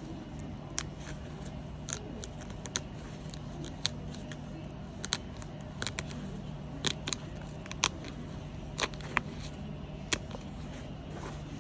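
Stitches snapping one by one as a small metal blade cuts them to unpick a hook-and-loop patch, about a dozen sharp snips at irregular intervals over a steady low hum.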